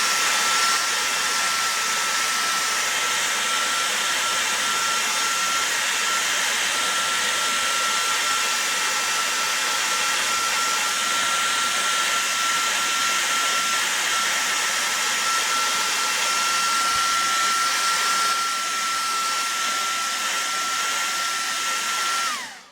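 Hot-air blower running steadily with a constant whine, heating the phone's glued back glass to soften the adhesive before it is pried off. It is switched off near the end, its whine dropping in pitch as it stops.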